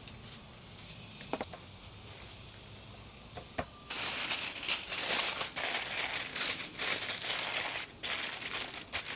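Aluminium foil crinkling and crackling as it is folded tightly around a rack of ribs, starting about four seconds in after a couple of faint clicks.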